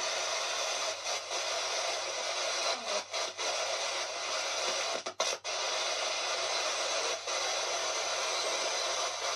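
Spirit box sweeping through radio stations: a steady hiss of radio static, cut by brief dropouts several times, twice in quick succession about five seconds in.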